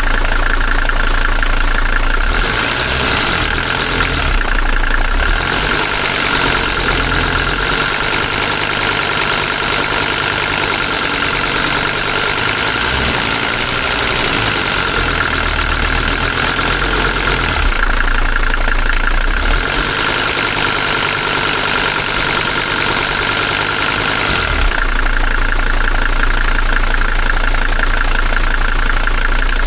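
Mercedes motorhome's diesel engine idling warm on a test run after repair work on the engine, with a steady whine above the engine sound.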